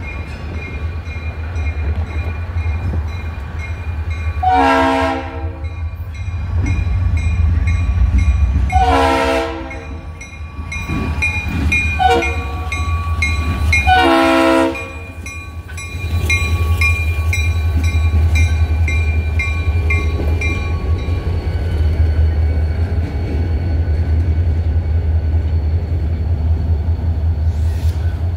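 Horn of a CSX diesel freight locomotive sounding three blasts, each about a second long and about four and a half seconds apart, over the steady low rumble of the locomotives' diesel engines as they pass close by. After the last blast the freight cars roll past with steady wheel noise on the rails.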